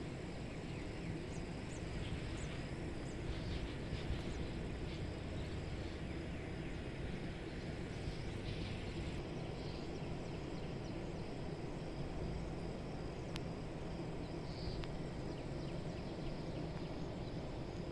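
Steady outdoor background noise, mostly a low rumble, with a few faint, short high chirps scattered through.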